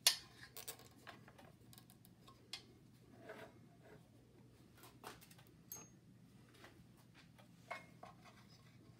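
Scattered faint clicks and knocks of hands working a rubber drive belt onto a small air compressor's pulley and turning it, the loudest a sharp knock at the very start, with a short rustle of handling a few seconds in.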